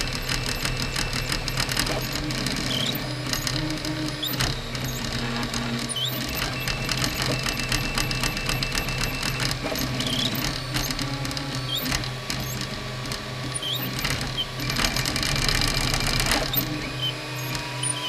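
Flsun 3D printer running a print: a steady motor hum with fast clicking and short whirring pitch sweeps from the stepper motors as the head moves.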